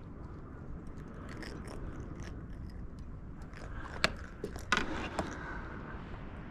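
Fishing reel and rod being worked while a small fish is brought in: quick rattling clicks, then a few sharp clicks and knocks about four to five seconds in, over a steady low rumble.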